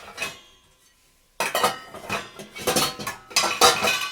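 Metal kitchen utensils and dishes clattering and clinking with a ringing tone as they are arranged in a dishwasher rack: a short clatter at the start, then a longer run of clanks from about a second and a half in.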